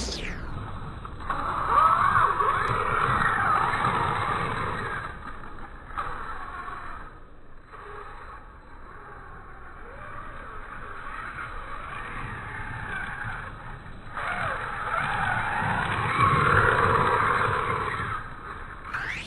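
Electric motor of a radio-controlled Carson buggy on a 2S LiPo whining in wavering glides as it accelerates and bashes across grass, heard drawn out and lowered in pitch by slow motion. Louder spells near the start and again near the end, quieter in between.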